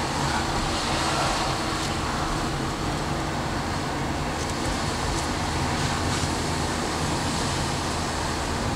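Car engine running steadily with tyre noise on asphalt, heard from inside the cabin while driving slowly.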